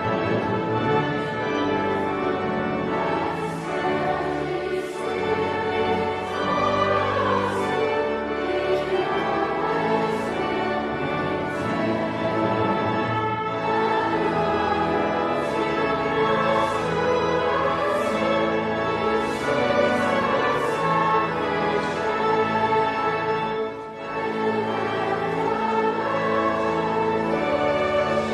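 Classical music: sung voices over an orchestral accompaniment, the voices with a wide vibrato.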